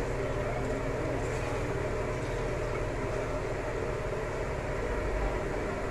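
Milk being poured into an aluminium pot on a gas stove: a steady pour, with a low hum underneath.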